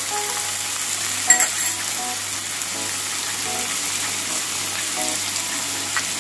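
Chopped onion, green chilli, tomato and capsicum sizzling steadily in hot oil in a non-stick frying pan as diced carrot is added. There is one brief clatter about a second in.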